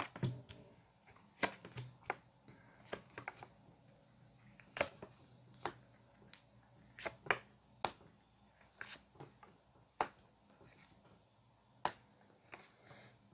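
Tarot cards being shuffled and handled: a dozen or so short, quiet card snaps and taps at irregular intervals.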